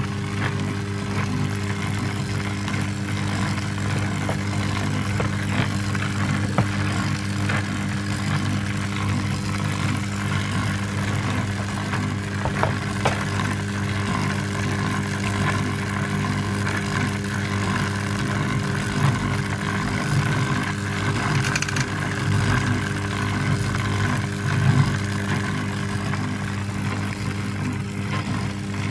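Electric drive motor of a homemade dual-spindle glass lathe running steadily, a constant low hum with a faint higher whine from the belt drive and a few light clicks.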